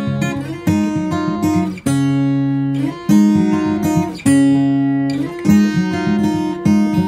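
Background music: an acoustic guitar strumming chords, changing chord about once a second.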